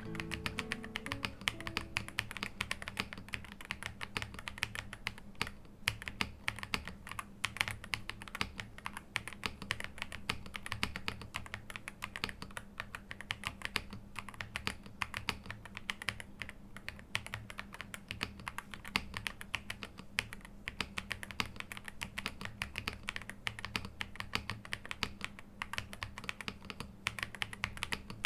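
Typing on an Ajazz AK820 mechanical keyboard with Green Plum switches, modded with tape, PE plate foam and EVA case foam: a fast, continuous run of keystrokes.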